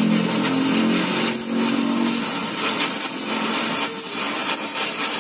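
A power tool running against metal during exhaust pipe work, a steady harsh noise with an uneven rasp. A low hum under it fades out about two seconds in.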